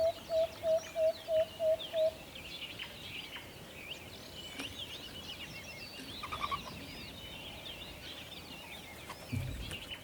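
An owl giving a quick series of about seven short, evenly spaced hoots, about three a second, for the first two seconds, over steady chirping of small songbirds. A low rumble comes near the end.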